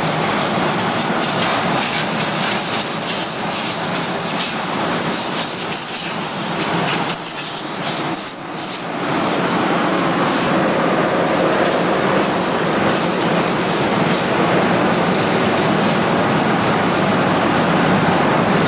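Steady loud hiss and rumble of woodworking factory machinery, with a brief dip about eight seconds in.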